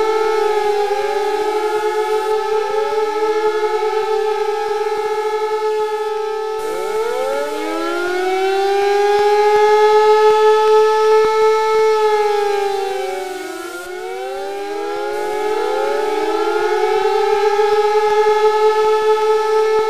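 Siren wailing, with many overlapping rising glides; its pitch falls and the sound dips about two-thirds of the way through, then climbs again.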